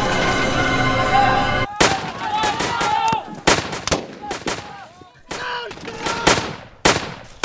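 Background music that cuts off suddenly about a second and a half in, giving way to rifle gunfire in irregular shots, at times several a second, with voices shouting between them.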